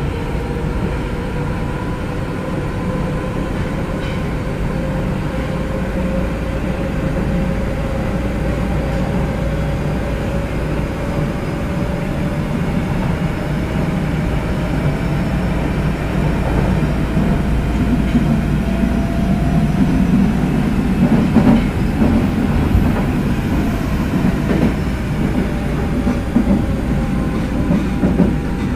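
Onboard running sound of a Nagoya Municipal Subway 2000 series train with Mitsubishi GTO-VVVF traction inverters. The inverter whine rises slowly in pitch as the train runs, over a steady rush from the car's very loud air conditioning. Wheel and rail rumble grows louder in the second half.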